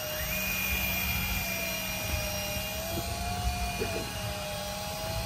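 Electric fishing reel's motor winding in line: a steady high whine with a lower hum under it, starting just after its button is pressed and running for about four and a half seconds. A boat's outboard engine drones underneath.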